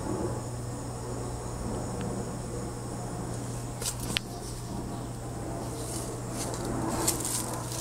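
Insects trilling steadily, cricket-like, over a low steady hum, with a couple of faint clicks about four seconds in.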